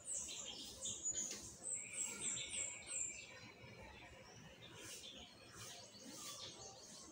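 Small bird chirping: a quick run of short, high, down-slurred notes, several a second, that stops about three seconds in, followed by fainter scattered calls.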